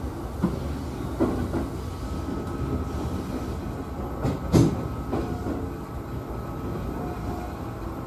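Interior running noise of an E233-series electric commuter train moving at low speed: a steady rumble with a faint steady whine, broken by a few sharp wheel knocks on the track, the loudest about halfway through.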